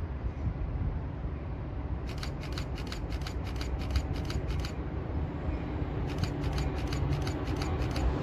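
A passing train: a steady low rumble with two runs of rapid, even clicking, about four clicks a second.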